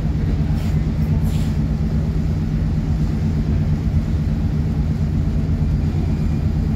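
Steady low diesel drone of a large passenger ship's engines and the tug at its bow as the ship comes alongside, with a few faint short high sounds in the first second or so.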